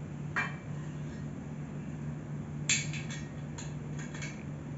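Small clicks and metallic clinks as an office chair's plastic caster wheel and chrome five-star base are handled during assembly. The sharpest clink comes about two and a half seconds in, followed by a few lighter taps, over a steady low hum.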